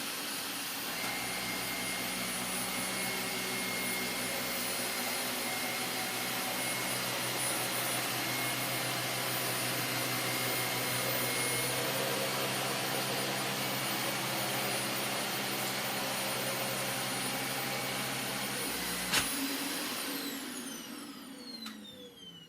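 Dyson DC25 upright vacuum cleaner running steadily with a high motor whine while picking up sawdust. Near the end there is a click, and the whine falls away as the motor spins down.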